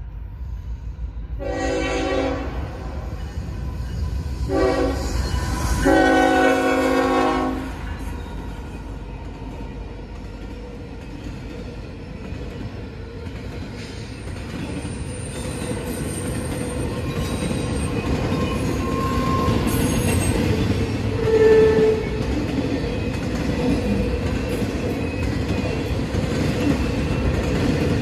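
A freight train's horn sounds three blasts, the middle one short, as a warning for the grade crossing. Then the intermodal train rolls through the crossing: a steady, growing rumble of wheels on the rails, with a thin high wheel squeal and a brief louder squeal near the end.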